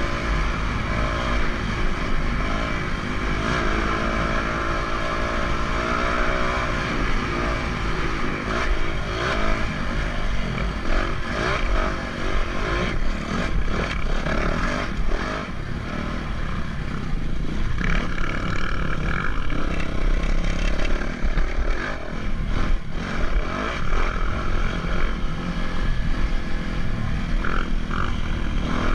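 A motor vehicle's engine running, heard over a heavy low wind rumble on the microphone, with scattered rattles and knocks.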